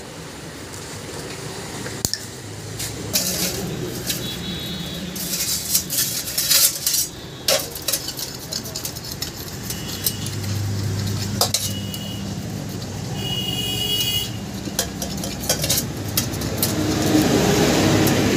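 Clinks and scrapes of a motorcycle cylinder head being worked on in a steel basin of petrol, the metal basin ringing briefly several times.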